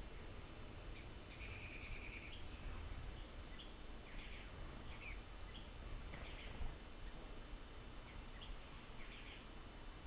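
Birds calling: two high, thin, buzzy notes about a second long, with scattered short chips, over a low rumble of wind on the microphone. There is a soft bump about two-thirds of the way through.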